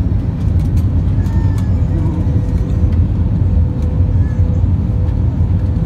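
Airliner cabin noise on approach to landing: a steady low rumble of engines and rushing air, with a faint steady tone joining about two seconds in and a few light clicks or rattles in the first couple of seconds.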